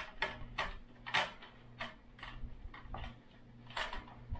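Aluminium slat top and frame of a folding camping table being fitted together by hand: a string of irregular light clicks and taps.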